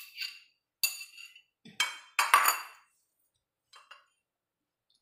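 Metal spoon clinking and scraping against ceramic dishes as food is spooned from a bowl onto a plate: a few sharp clinks with short ringing, the loudest a little over two seconds in, then two faint taps near the end.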